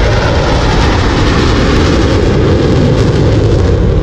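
Engine drone of a four-ship formation of AT-6 Texan aerobatic airplanes flying over: a loud, steady sound.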